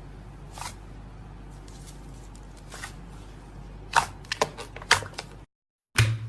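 Slime being handled, giving sharp clicks and pops over a low steady hum, with a few loud clicks about four to five seconds in. The sound drops out completely for a moment near the end, then comes back with a loud pop.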